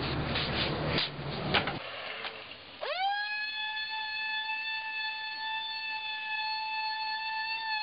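Electric palm sander sanding the wooden edge of an insect drawer. About three seconds in, after some rustling noise, its motor whine rises quickly in pitch as it spins up, then holds a steady high pitch.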